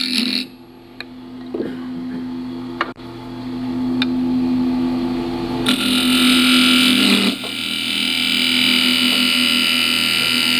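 Wood lathe running with a hum while a hand-held turning tool cuts into the end face of a spinning ash blank. The scraping cut stops about half a second in, leaving the motor hum and a few light clicks, then starts again a little past halfway, with a short break about a second and a half later.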